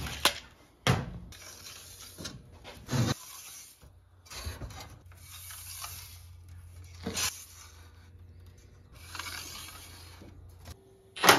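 Bend lines being drawn on sheet steel: several scratchy strokes a second or two long, with a few sharp taps and clinks of metal in between.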